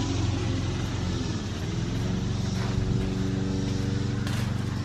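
A motor running steadily, a constant pitched drone with no change in speed.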